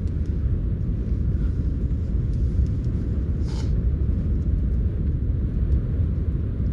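Wind buffeting the microphone: a loud, unsteady low rumble with no pitch, with one brief higher sound about three and a half seconds in.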